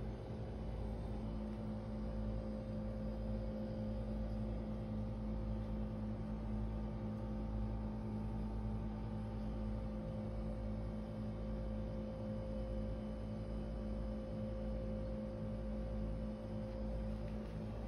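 Steady low electrical hum with several constant tones held unchanged.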